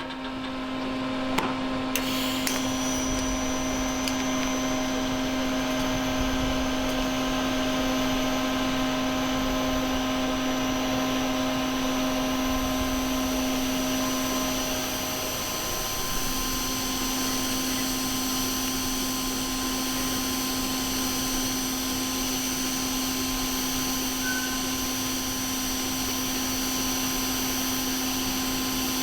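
TIG welding arc running a fillet weld on low-carbon steel plate: a steady hiss with a fixed hum. It starts just after the beginning and runs unbroken.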